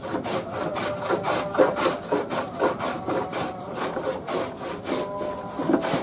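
Metal scrub plane shaving wood in quick repeated strokes, each stroke a short rasping scrape, as it knocks down the thick side of a slightly tapered board to flatten it.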